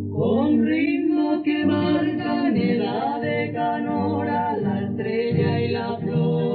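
A woman singing a Paraguayan guarania with wavering vibrato over a low, steady accompaniment. It comes from an old cassette recording and sounds muffled, with no highs.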